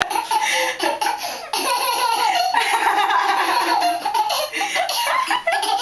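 Baby laughing, one run of quick, pulsing laughter after another.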